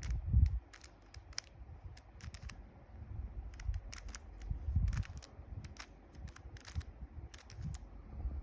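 Plastic 3x3 Rubik's Cube layers being turned by hand: a string of short, irregular clicks and rattles over low handling noise.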